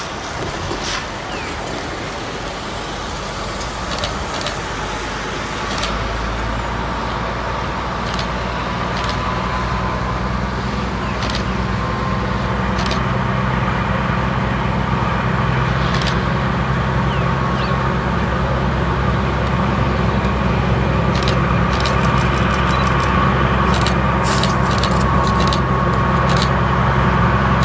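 GE 80-ton centercab diesel locomotive approaching slowly, its diesel engine running and growing steadily louder. A low, even engine hum builds about six seconds in, and a thin steady whine joins later. Scattered sharp clicks run through it.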